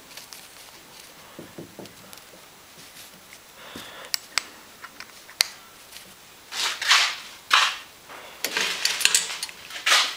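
Small metal parts, screws and a screwdriver, clicking as they are picked up and handled on a cloth-covered bench: a few sharp clicks, then several short bursts of scraping and rustling in the second half.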